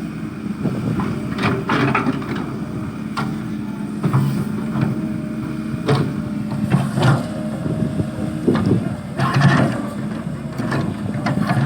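Excavator's diesel engine running steadily, with short louder sounds over it every second or two.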